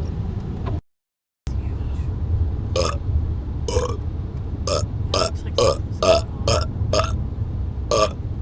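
A man burping in a rapid string of short burps, about nine in all, starting about three seconds in, over the steady low rumble of a car driving on the highway, heard inside the cabin. The sound cuts out completely for a moment about a second in.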